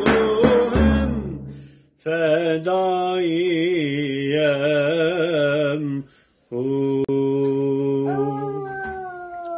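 A man's voice singing a Turkish ilahi in long held notes with a wavering vibrato, breaking off briefly twice and sliding down at the end of the last note. A frame drum with ring jingles sounds a few strokes in the first second or so.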